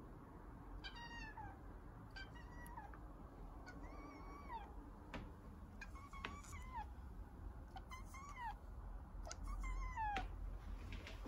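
Kitten meowing over and over from inside a wire cage, roughly one high cry every second and a half, each dropping in pitch at the end: crying to be let out.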